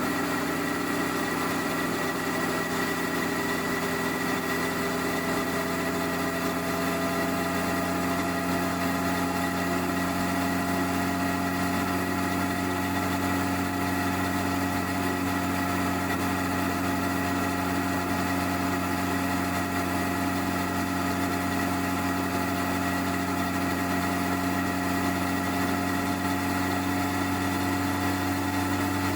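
Stock 1999 Honda CBR1100XX Blackbird's inline-four engine running steadily through its standard exhaust, its pitch held almost constant with only a slight slow rise. It is heard from a phone under the rear seat.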